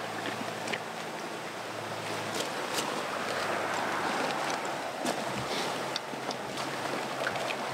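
Steady rush of a nearby stream, with small clicks and rustles of a pack's zipper and gear being handled. A low hum stops about two seconds in.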